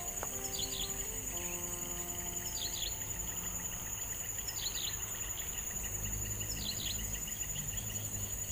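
Insects shrilling steadily at a high pitch, while a bird repeats a short call of a few quick falling notes about every two seconds.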